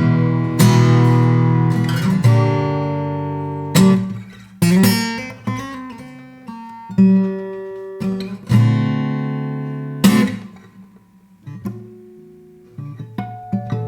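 Dame Lilies 70 jumbo acoustic guitar, with a cypress top and mahogany back and sides, strummed one chord at a time, each chord left to ring out and fade. Quieter single picked notes come between the chords, most of them near the end.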